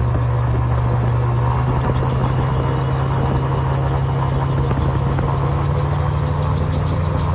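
Steady engine drone with a strong, constant low hum and an even rushing noise, unchanging throughout.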